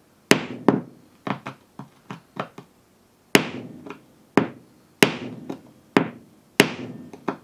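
Hammer striking the end of a screwdriver held point-down on a car windshield: a series of sharp taps, each with a short ring, light and quick at first, then harder and more spaced from about three seconds in, as the tip is driven to knock a small chip into the glass.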